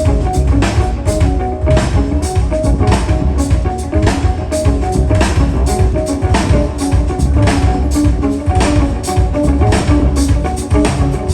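Instrumental jazz from a piano trio: piano, bass and drums playing together, the drums striking several times a second.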